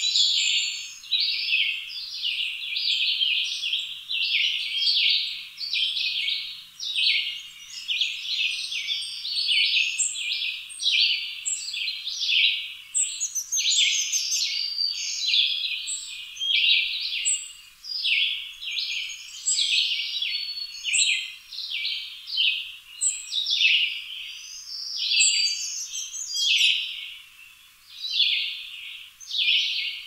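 A dense chorus of birds chirping: many short, high-pitched calls overlapping, about two a second, with no gaps.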